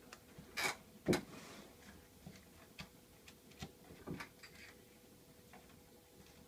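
Bearded dragon biting into chopped vegetables in its dish: irregular small clicks and crunches from its jaws. Two louder ones come about half a second apart near the start.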